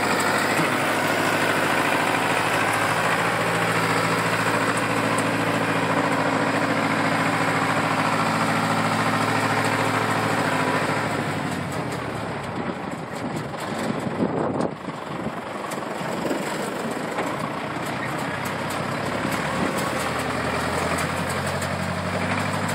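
Deutz D6006 tractor's air-cooled four-cylinder diesel running at a steady idle. About halfway through its sound gets quieter and less even as the tractor drives off, with a brief rough rumble around the middle before a steady note returns.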